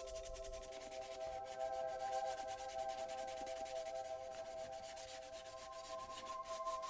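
Hand sanding of cured resin coating on 3D-printed plastic parts, with abrasive rubbing back and forth in quick repeated strokes.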